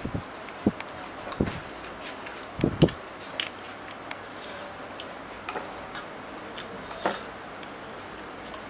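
Scattered clicks and taps of chopsticks against bowls and dishes, with a few dull knocks in the first three seconds.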